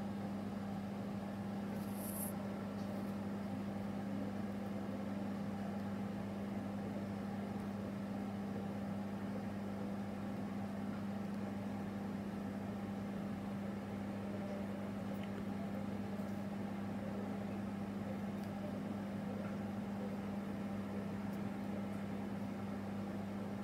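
A steady low hum with a faint even hiss, unchanging throughout, and a brief faint click about two seconds in.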